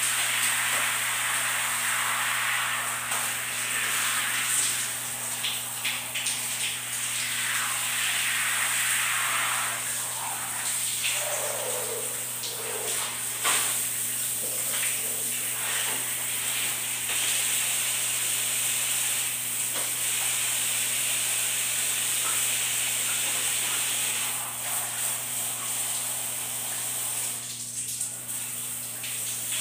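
Shower water running: a steady hiss of spray falling on a person and the tiled floor.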